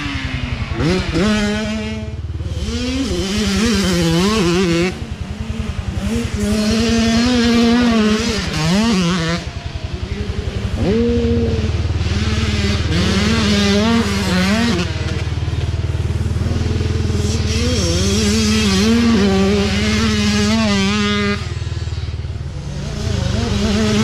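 Youth dirt bike engines revving up and down as the bikes ride past on a dirt race track, the pitch climbing and dropping over and over with throttle and gear changes.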